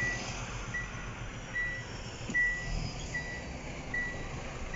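Truck's electronic warning beeper sounding a steady series of short, high, single-pitch beeps, about one every 0.8 seconds, heard inside an Iveco Hi-Way cab over the low hum of the idling engine.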